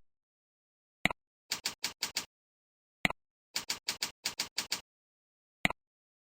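Computer keyboard clicks typing the admin username and then the password into a login form, in two quick runs of about five and about nine keystrokes. A single mouse click comes before each run and another near the end, submitting the login.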